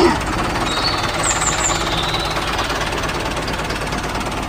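Tractor engine running with a fast, steady knocking rattle.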